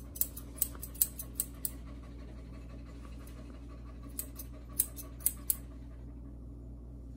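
Grooming scissors snipping the hair on a toy poodle's face: about eight quick, sharp snips in the first two seconds, then about six more between four and five and a half seconds in.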